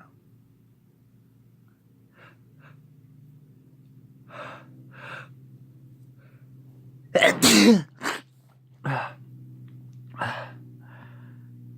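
A man's induced sneeze. A couple of faint sniffs and two sharp in-breaths build up to one loud sneeze about seven seconds in. A few shorter, weaker bursts of breath follow.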